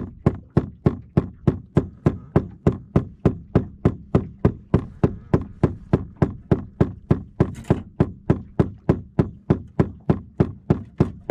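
Steady rhythmic knocking, about four sharp knocks a second, evenly spaced and unchanging.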